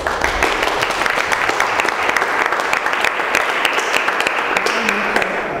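Audience applauding: many hands clapping steadily, stopping fairly abruptly near the end.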